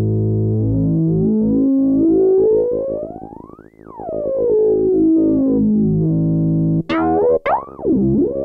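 Behringer Odyssey synthesizer with oscillator sync: a held low note whose synced overtones sweep up to a bright peak about halfway through and then back down. Near the end, short new notes start sharply, each with a quick swooping sweep.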